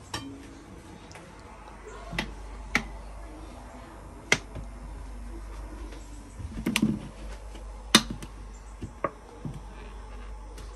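Kitchen clatter while cooking: about eight separate sharp clicks and knocks of utensils and dishes, with a short burst of clatter about seven seconds in and the sharpest click just after it.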